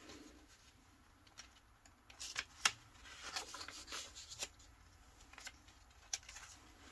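Sheets of printed paper being handled and turned over: faint rustling with a few sharp papery snaps, the sharpest a little under three seconds in.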